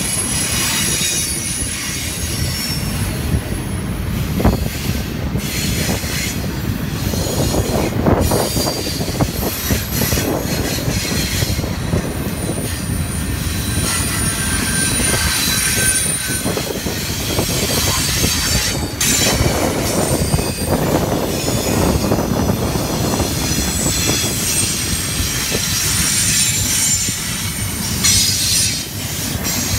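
Double-stack intermodal well cars of a freight train rolling past close by: a steady rumble of steel wheels on rail, with thin high wheel squeals that come and go and a few sharp knocks.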